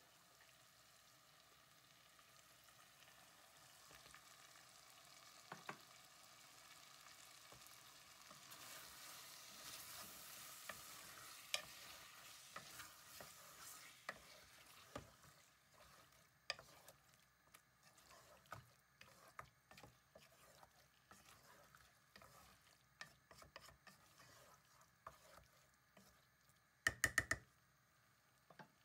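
Wooden spoon stirring chicken and boiled spinach in a large aluminium pot, the mix faintly sizzling, with a hiss that swells between about 8 and 14 seconds in. The spoon knocks against the pot now and then, and near the end gives four quick sharp knocks.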